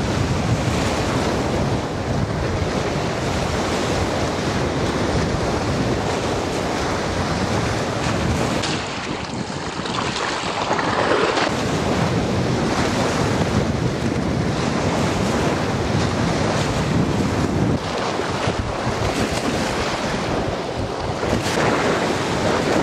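Storm waves breaking and washing against a concrete bank, with strong wind buffeting the microphone throughout.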